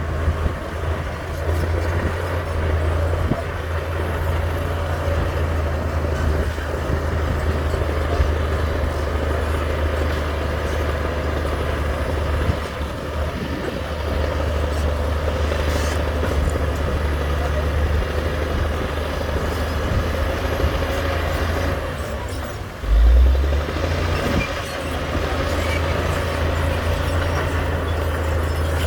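Heavy diesel engine of earthmoving machinery running steadily with a deep drone, with a short, louder surge about 23 seconds in.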